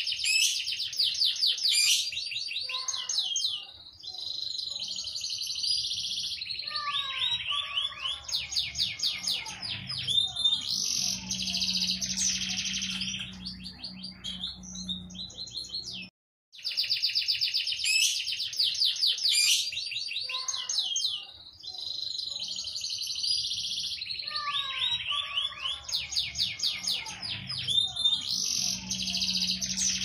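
Domestic canary singing a long song of rapid trilled rolls and whistled phrases, high-pitched and nearly continuous. A brief break comes about 16 seconds in, after which the same passage repeats.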